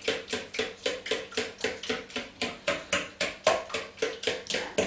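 Pancake batter being beaten by hand in a mixing bowl: a fast, even rhythm of about four to five strokes a second, each a sharp clack of the utensil against the bowl.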